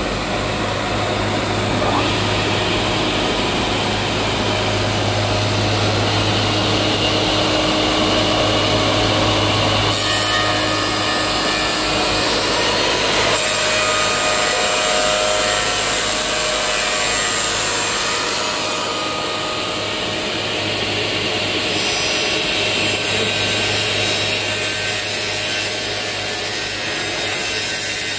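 Four-sided planer moulder running, its cutterhead spindles planing boards as the feed rollers push them through. The sound is a loud, steady machine noise over a low hum, and its high part changes about a third of the way in and again about three-quarters through.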